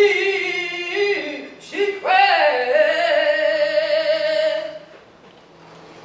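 A woman singing solo in two sustained phrases, the second a long held note that fades out about five seconds in.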